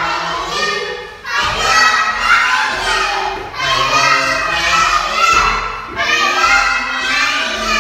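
A group of young children shouting together in chorus, in long drawn-out phrases, with a couple of dull thuds about a second and a half in and again near the end.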